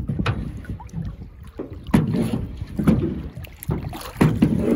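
Canoe paddle strokes in river water, a splash about every second, with wind on the microphone.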